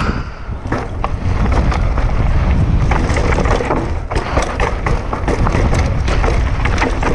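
Wind buffeting an action camera's microphone on a fast mountain-bike descent, rising over the first second or two and then holding steady, over a constant clatter of sharp knocks and rattles from the bike running over rough trail.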